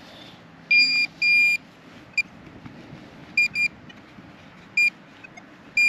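Metal detector's high beep signalling a metal target in the ground: two longer tones about a second in, then short, irregular blips.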